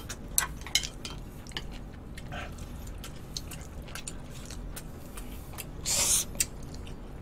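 Eating sounds: chewing and biting of marinated beef short ribs, with scattered small clicks throughout and a short louder rush of noise about six seconds in.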